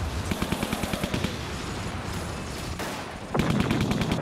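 Rapid, sustained machine-gun fire, a dense rattle of shots that gets louder a little after three seconds in.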